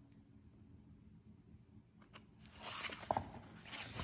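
Paper pages of a paperback graphic novel rustling and crackling as they are handled and turned, starting about two and a half seconds in and lasting about two seconds.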